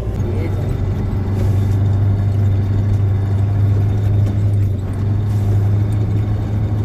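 Military Ural truck's engine running steadily as the truck is driven in low gear, a loud, even low drone.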